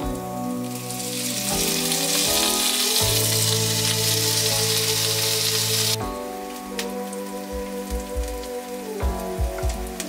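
Grated ginger and chopped garlic sizzling in hot oil with whole spices in a frying pan. The sizzle swells about a second in and cuts off suddenly about six seconds in, over background music.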